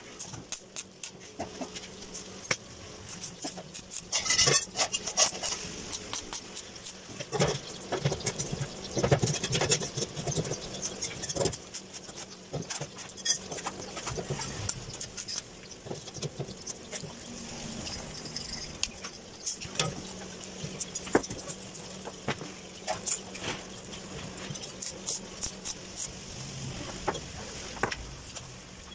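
Electric arc welding on a steel frame: the arc crackles and hisses in short stretches, mixed with irregular clinks and taps of steel bars being handled and set in place.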